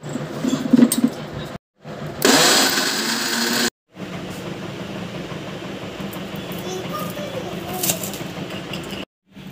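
Steel jar clinking onto an electric mixer grinder, then the grinder running for about a second and a half as it grinds mint leaves. After that comes a steady low hum, with a knife cutting through a raw onion on a cutting board near the end.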